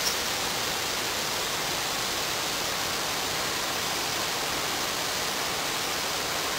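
A double-layered waterfall roaring steadily, an even rush of falling water.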